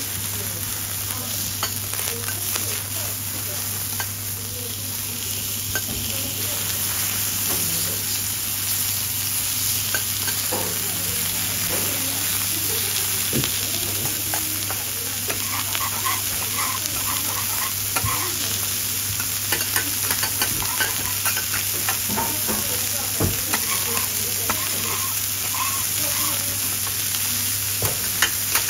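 Food sizzling and crackling on a hot teppanyaki griddle: a steady hiss dotted with small pops, with occasional sharp clicks, under a steady low hum.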